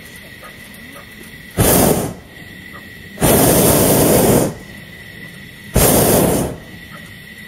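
Hot-air balloon's propane burner firing in three loud blasts: a short one, a longer one of over a second, then another short one.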